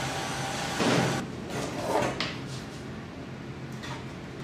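Handheld heat gun blowing hot air onto a kydex sheath, switched off a little over a second in; then a few light knocks and rustles as the stiff kydex sheath is handled and lifted off the wooden bench.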